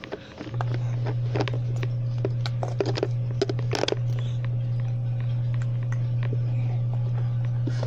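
A steady low hum from an unseen machine starts abruptly about half a second in and runs at an even level, the loudest sound here. Over it come small scattered clicks and a few brief baby sounds while the baby is spoon-fed.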